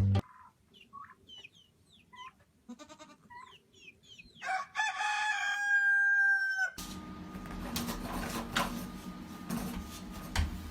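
Chicken calls: a run of short, high chirps, then one long, held call of about two seconds that cuts off abruptly. A steady noisy background with a low hum follows.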